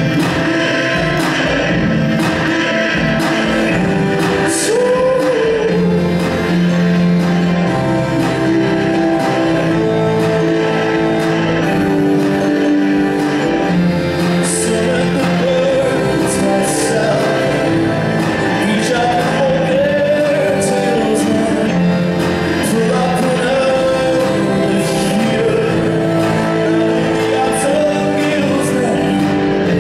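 A live song: a male voice singing over keyboard and violin, with long held notes throughout.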